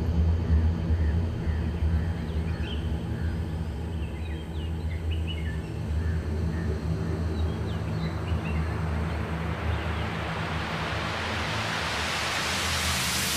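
A steady low drone under scattered short bird chirps, then a rising whoosh of noise that swells over the last five seconds: a sound-design riser.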